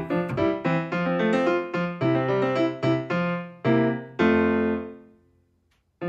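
Background piano music, a run of single notes and chords; a final held chord about four seconds in fades away to near silence before the end.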